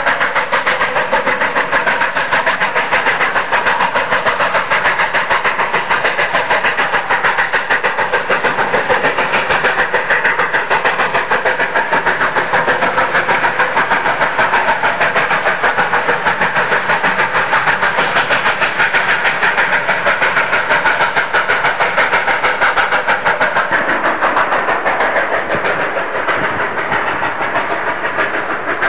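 Narrow-gauge steam locomotive working upgrade with a train, its exhaust beating in a fast, steady rhythm. The sound changes about twenty-four seconds in, with less hiss at the top.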